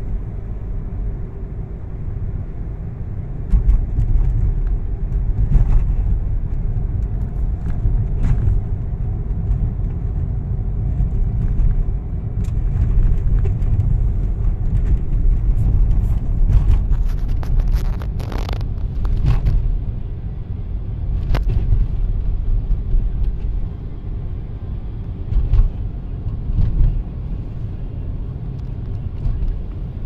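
Car driving: a steady low rumble of road and engine noise that swells and eases, with a few faint clicks and ticks.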